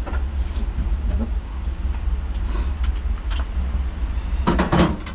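Hand tools and car interior trim pieces being handled: scattered light clicks and knocks, with a louder cluster of knocks and rattles near the end, over a steady low rumble.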